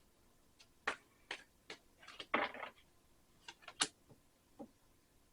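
Tarot cards being handled and laid down: about seven light, sharp taps and clicks, with a short rustle about two and a half seconds in.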